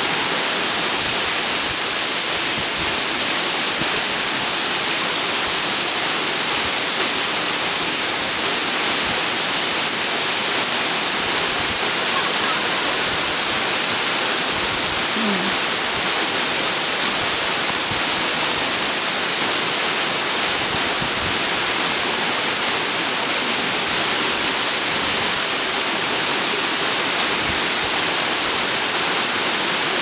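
Waterfall rushing: a steady, even hiss that holds unchanged throughout.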